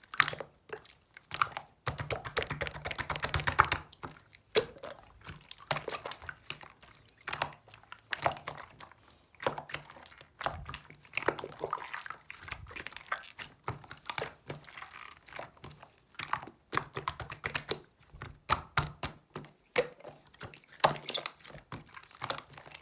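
Close-up eating sounds: chewing with many small irregular mouth clicks and crackles, densest about two to four seconds in.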